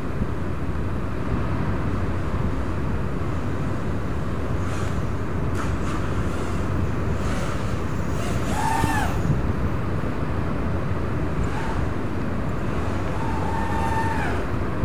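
Steady low outdoor rumble, of the kind wind makes on a microphone, with two brief pitched tones: one about halfway through and another near the end.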